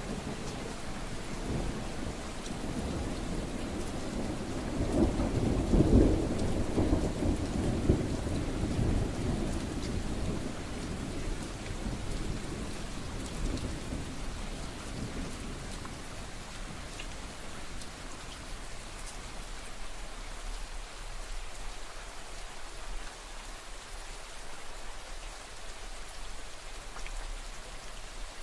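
Steady rain falling, with a roll of thunder that swells a few seconds in, peaks at about six seconds and dies away over the next ten seconds, leaving only the rain.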